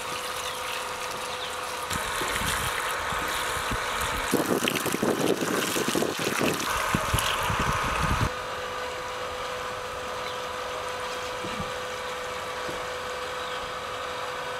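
Water from a garden hose pouring and splashing onto potatoes in a metal basin as hands scrub them. Heavier splashing from about four seconds in stops abruptly about eight seconds in, leaving a steady pour.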